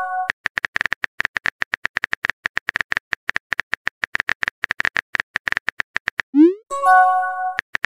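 Phone keyboard typing-click sound effect, a fast run of short, even ticks. About six seconds in comes a quick rising swoop and a short chime of a new text message popping up, then the typing clicks start again.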